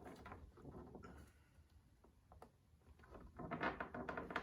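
A butter knife prying at a plastic roof rain gutter cover: faint scraping and small clicks, then a rapid run of creaking clicks in the last second or so as the plastic is forced.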